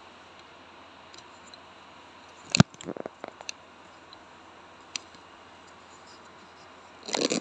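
Quiet room tone broken by a sharp knock about two and a half seconds in, followed by a quick run of lighter clicks, another single click about five seconds in, and a short burst of rustling noise near the end.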